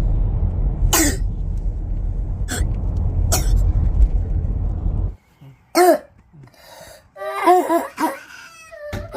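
A young child's barking croup cough. Three sharp coughs come over a steady low rumble. After a sudden cut to quiet, several more short coughs follow, hoarse and pitched, the seal-like bark typical of croup.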